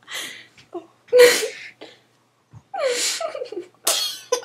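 About four short, breathy bursts of human voice with silent gaps between, one of them sliding down in pitch: snorts, gasps and stifled laughs rather than words.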